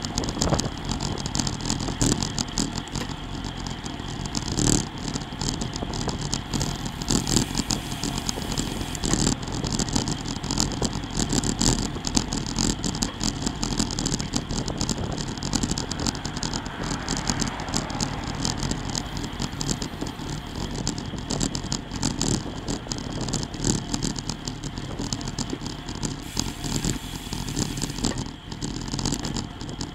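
Road bike rolling fast in a group ride: steady wind and tyre noise on a bike-mounted camera, with constant rattling and clattering from the ride over the pavement.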